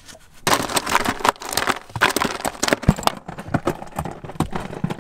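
Crushed ice crackling and clattering in a small cooler as a bluegill is pushed down into it. The loud clatter starts about half a second in and lasts a couple of seconds, then thins to scattered clicks.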